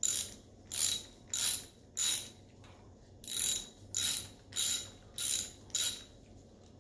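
Hand ratchet turning a timing chain tensioner bolt in slowly: about nine short bursts of ratchet clicking, one per stroke, with a brief pause midway.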